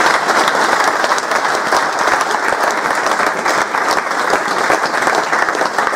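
A room full of people applauding: steady clapping of many hands that holds at an even level throughout.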